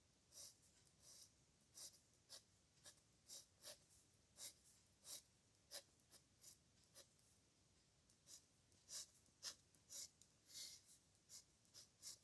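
Pen scratching on paper in short, quick strokes, about one or two a second, with a brief pause a little past the middle.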